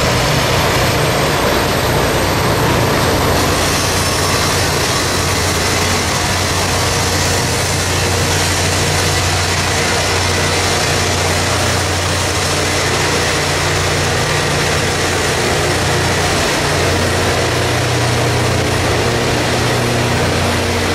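Loram rail grinder train rolling slowly past, its diesel engines running with a loud, steady hum under a dense, even wash of noise.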